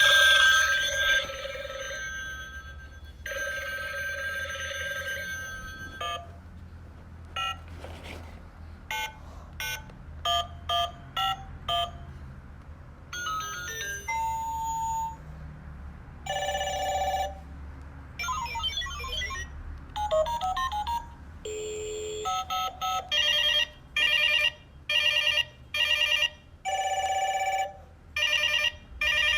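Toy retro telephone's electronic sound effects: an electronic phone ring twice, then a string of short button beeps and assorted electronic tones, ending with a rapid series of short ringing bursts.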